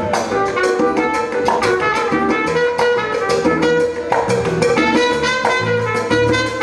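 Instrumental passage of salsa music: percussion keeping a steady beat under a band with guitar and bass.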